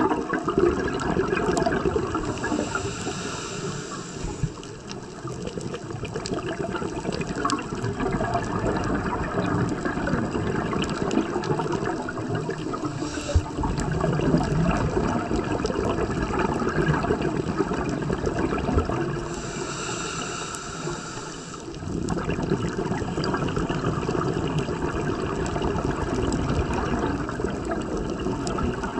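Underwater bubbling and gurgling of a scuba diver's breathing: exhaled bubbles from the regulator, heard through the camera's underwater housing. A higher hiss comes in twice, briefly.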